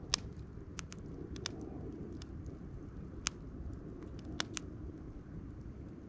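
A split-log wood fire in a steel campfire grill crackling, with scattered sharp pops, the loudest just as it starts, under a steady low rumble.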